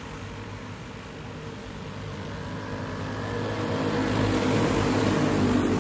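Several racing go-kart engines running at high revs, a steady droning pack that grows steadily louder through the second half as the karts come closer.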